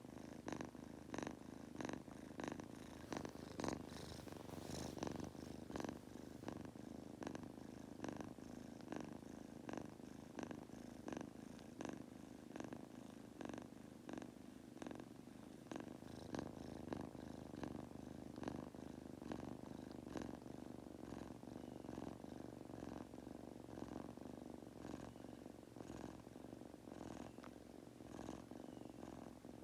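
Munchkin kitten purring steadily as it falls asleep: a low, continuous purr broken by short crackly pulses every half second or so.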